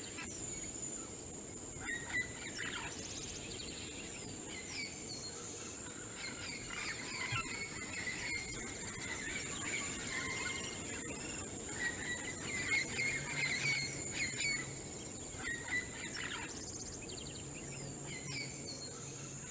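Tropical swamp-forest ambience: scattered short bird calls and chirps, busiest a little past the middle, over a steady high-pitched insect drone.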